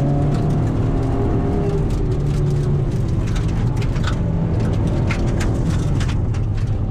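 Ford Escort hill-climb car's engine heard from inside the cabin, running hard with its pitch falling and rising as it works through the corners. A few sharp ticks sound over it in the second half.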